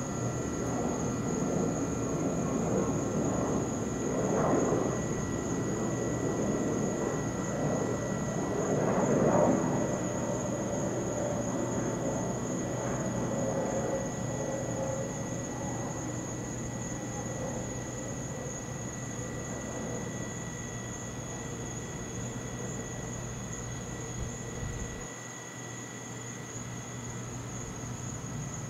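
Steady high-pitched chorus of night insects, with a low rumble underneath that swells twice, about four and nine seconds in, then slowly fades.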